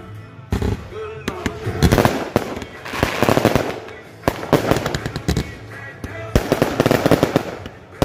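Consumer fireworks going off: rapid volleys of sharp bangs and crackling pops from aerial shells, coming in clusters with short lulls about four seconds and six seconds in.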